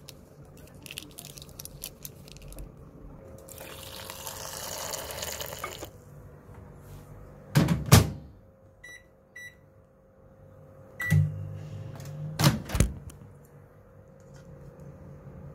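Water poured for a few seconds. Then a microwave oven door shuts with a thunk, two short keypad beeps sound, and a third beep starts the oven running with a low hum. Two knocks follow a second later.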